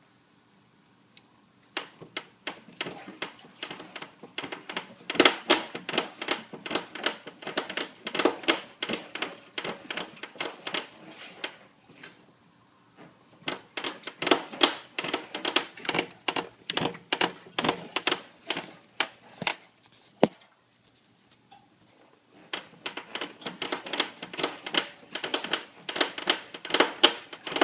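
Creaking from a 2001 Suzuki GSX-R1000 whose cause the owner cannot identify: rapid runs of dry creaks and clicks in three spells, separated by short pauses.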